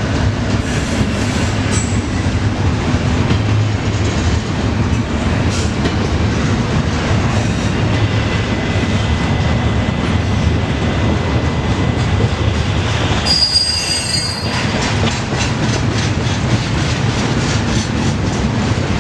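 Intermodal freight train rolling past on the rails: a steady heavy rumble with wheels clicking over the rail joints. A brief high wheel squeal comes a little after the middle, and the clicking becomes rapid and regular toward the end.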